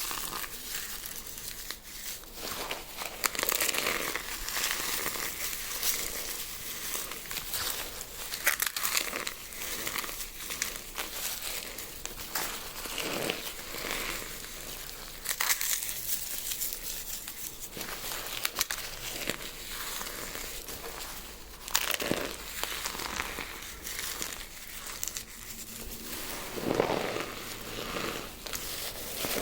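A mix of eggshells, dried rose petals and cornstarch being crushed: continuous crackling and crunching with many sharp snaps.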